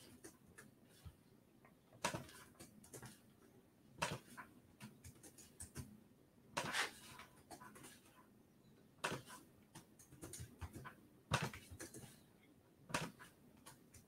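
Faint keyboard typing: short clusters of key clicks about every two seconds.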